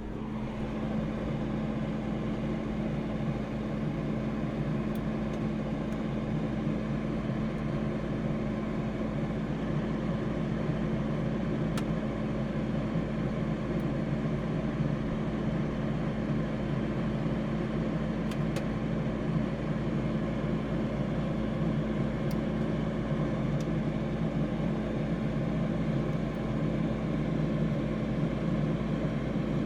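Freezer running with a steady electric hum: one constant low tone over a low rumble and a light hiss, with a few faint ticks.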